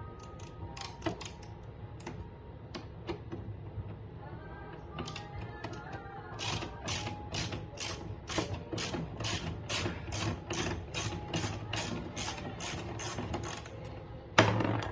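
Hand ratchet wrench clicking as it turns rusty body bolts out: a few scattered clicks at first, a short squeak about five seconds in, then a steady run of about four clicks a second. A single loud knock near the end.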